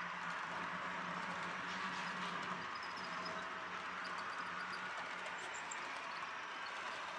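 HO scale model train running on track: a steady whir of motor and wheels, with faint high squeaks. A low hum fades out about two thirds of the way through.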